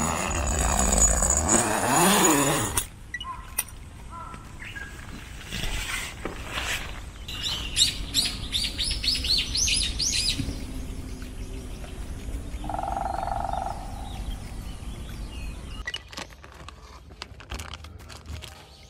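Wild birds singing: a quick run of repeated high chirps about halfway through, then a single steady whistled note a little later. The first few seconds hold loud rustling and handling noise, and light clicks come near the end.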